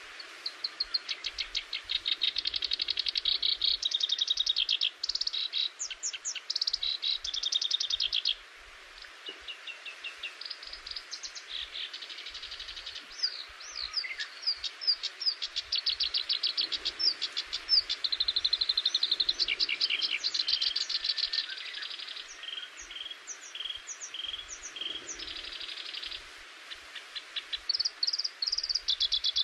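A songbird singing a long, varied song of rapid repeated notes and trills, the phrase changing every second or two, over a steady background hiss.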